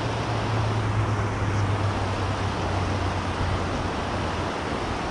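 Steady rush of water pouring over a river spillway, with a low hum underneath that fades out about four seconds in.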